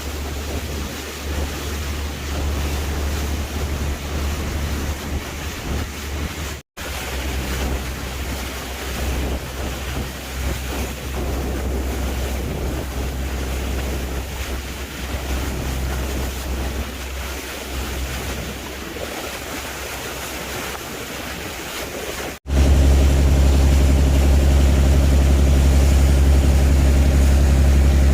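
Sea waves washing with wind buffeting the microphone, split by an abrupt cut about seven seconds in. About 22 seconds in, another cut brings a louder, steady engine hum with a low drone under the wind noise.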